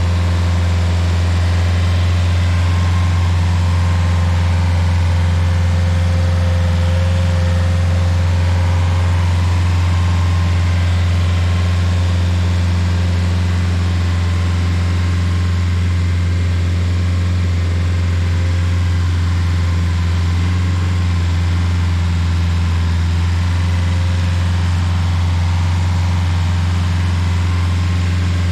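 Rayco RG50 stump grinder's engine running loud and steady, an even hum with no changes in speed.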